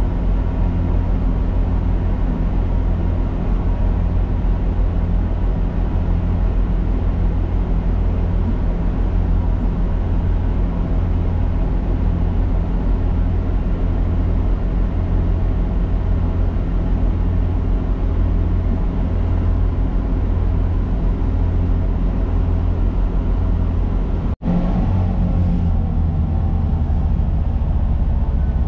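Onboard noise of a GWR Class 166 Turbo diesel multiple unit under way: a steady low drone from its underfloor diesel engines, with running noise from the wheels on the track. About three-quarters of the way through the sound cuts out for an instant and comes back slightly changed.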